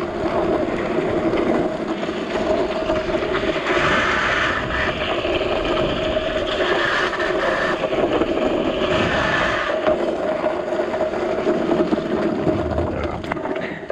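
Drift trike rolling fast down wet asphalt: a steady hum from its wheels with louder hissing stretches about four seconds in and again from about seven to ten seconds. The noise falls away near the end as the trike slows to a stop.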